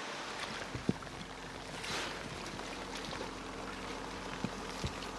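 Shallow stream water sloshing and splashing around people wading and working in it, with a few dull knocks and a faint steady hum underneath.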